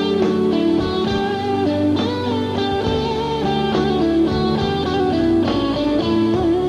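Live band playing an instrumental break: a Stratocaster-style electric guitar plays a lead line with notes that slide and bend in pitch, over steady drums and the rest of the band.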